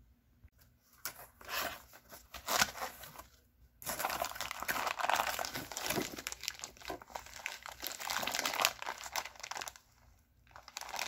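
A taped cardboard box is cut and opened with a knife, giving scattered scratching and rustling. Then a plastic bag crinkles steadily as an item wrapped in plastic is pulled out and handled. The crinkling pauses briefly near the end, then starts again.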